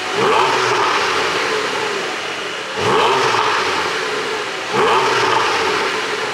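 2021 Porsche 718 Boxster 4.0 GTS's 4.0-litre flat-six, on an ECU exhaust-flap and pop tune, revved in three throttle blips about two seconds apart, each rising sharply and then falling back toward idle.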